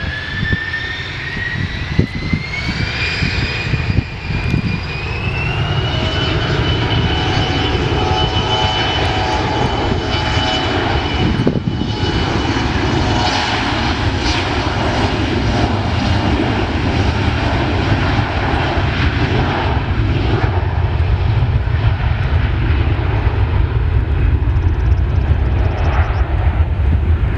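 Bombardier CRJ-700's two rear-mounted GE CF34 turbofans spooling up to take-off thrust: a whine rises in pitch over the first five or six seconds, then holds steady over a heavy jet rumble that grows louder and stays loud through the take-off roll.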